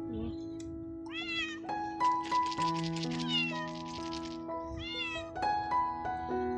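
Young tabby cat meowing repeatedly: short calls about a second in and about five seconds in, with a longer call between them. Background music plays underneath.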